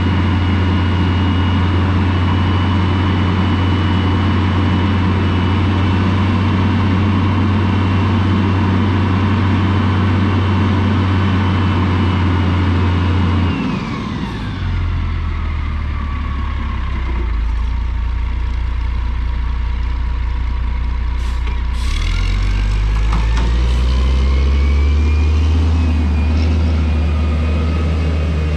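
Diesel dump truck engine running steadily at raised revs while the hydraulic hoist lifts the loaded bed. About fourteen seconds in the engine note drops back. Later, after a couple of sharp clicks, it revs up again as the truck pulls forward to spread gravel out of the tailgate.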